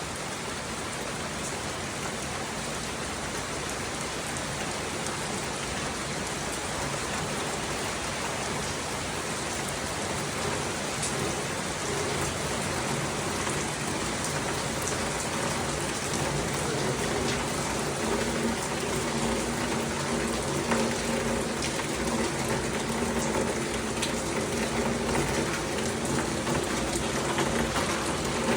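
Heavy rain falling steadily in a dense hiss that grows slightly louder, with a faint steady low hum underneath in the second half.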